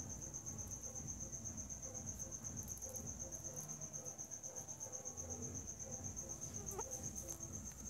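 Insect chirping: a steady, rapidly pulsing high-pitched trill.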